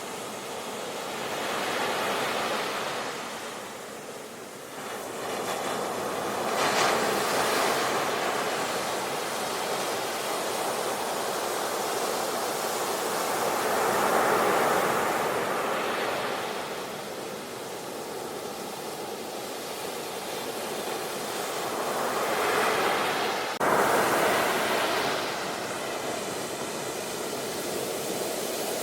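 Sea waves breaking and washing on the shore, in slow swells that rise and fall every few seconds. Near the end the sound breaks off sharply and comes straight back louder, like an edit.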